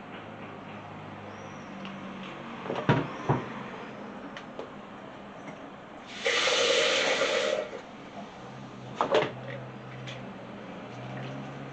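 Plastic blender jug knocked against a plastic strainer as blended coconut pulp is tipped into it: a couple of sharp knocks about three seconds in and again near nine seconds. A loud rushing hiss lasting about a second and a half comes midway.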